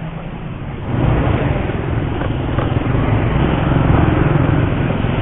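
Yamaha Mio Sporty scooter's single-cylinder engine running, getting louder about a second in.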